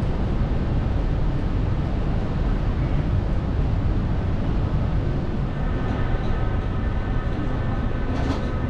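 Keisei Skyliner airport express train standing at an underground platform, its on-board equipment running with a steady low rumble. A few faint steady tones come in about two-thirds of the way through.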